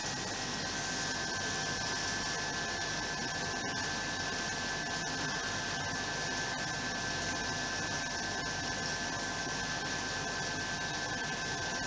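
Steady hiss and hum of running aquarium equipment such as air pumps and filters, with a steady high whine over it and a few faint ticks.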